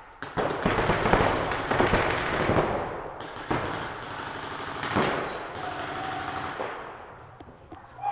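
Paintball markers firing rapid strings of shots, densest in the first three seconds, with a few single shots near the middle; the shots echo around a large hall.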